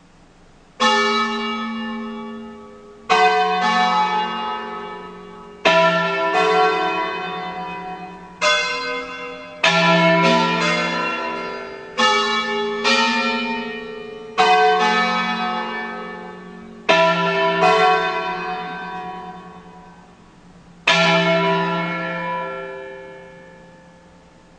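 Church bells of a five-bell Ambrosian peal tuned E, F♯, G♯, A and B, struck one at a time in an unhurried, uneven tune (a 'concerto'), each stroke ringing on and dying away. The first stroke comes about a second in, there is a short pause before a last note that fades out near the end.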